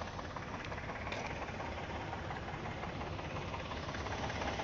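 2012 Chevrolet Impala's 3.6-litre V6 idling with a rapid, steady clicking, which the owner hears coming from the passenger side of the engine.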